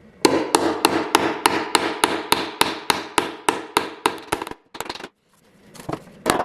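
Hammer tapping a small steel tie-wire shield staple, evening out its two points. The taps come quickly and evenly, about three to four a second, each with a short metallic ring. They stop for about a second after four and a half seconds, then a few more come near the end.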